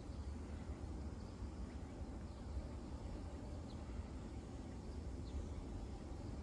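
Outdoor ambience: a steady low rumble with a few faint, short bird chirps about halfway through and again near the end.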